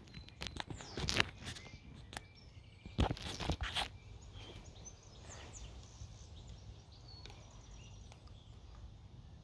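Crunching, rustling knocks close to the microphone, loudest about a second in and again about three seconds in, then a quiet outdoor background with small birds chirping.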